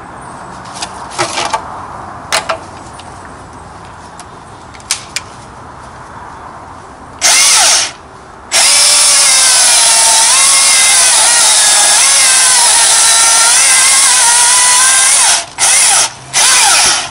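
Milwaukee M18 FUEL cordless brushless chainsaw. A few clicks come first. About seven seconds in the motor gives a short burst, then runs steadily for about seven seconds as it cuts through a log, its pitch dipping under load. Two short bursts follow near the end.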